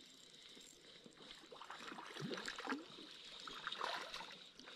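A hooked cutthroat trout splashing and thrashing at the water's surface as it is reeled in toward the bank. The irregular splashes and gurgles start about a second in and grow louder.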